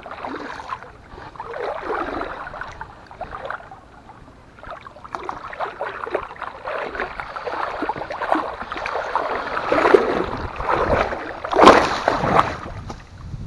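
A hooked small tarpon thrashing and splashing at the surface as it is brought to the bank, in repeated irregular splashes. The loudest splash comes near the end, as the fish is landed.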